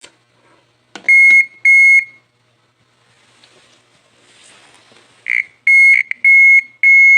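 Electronic beeping: loud beeps at one steady high pitch, two about a second in, then a quicker run of five near the end, with a few faint clicks between.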